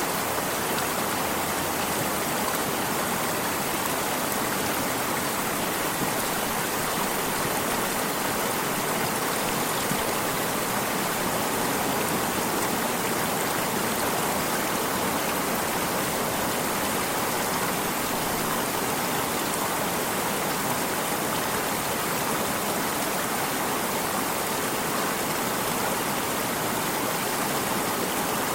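Running water of a stream, flowing with a steady, unbroken rush.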